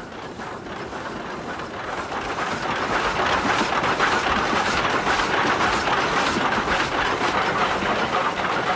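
Old inside-cylinder 4-4-0 steam locomotive running, heard close to its inside motion between the frames: a steady, rapid clatter of moving rods and wheels on the rails. It grows louder over the first three seconds, then holds.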